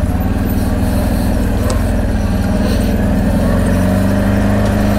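ATV engine running steadily while riding, its note stepping up slightly a couple of times.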